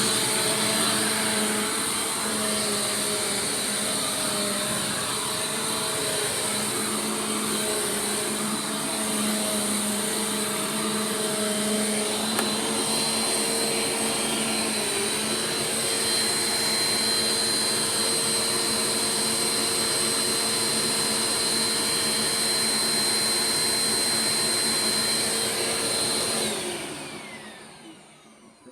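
Bissell PowerForce Compact Turbo upright vacuum cleaner (model 2690, 6.2-amp motor) running steadily with its motor whine. It is switched off near the end, and the whine falls away as the motor spins down.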